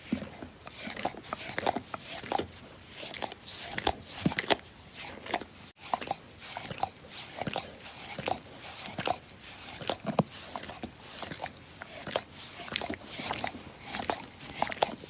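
A dog licking: quick, irregular wet smacks and slurps, one after another, with a momentary break about six seconds in.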